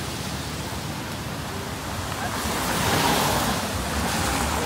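Steady rushing noise that swells louder about three seconds in, then eases again.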